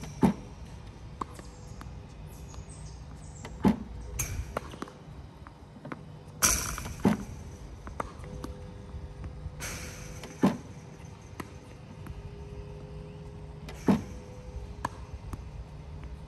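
Battery-powered tennis ball machine running with a steady hum, firing a tennis ball with a sharp pop about every three and a half seconds, with fainter knocks and swishes of balls between the shots.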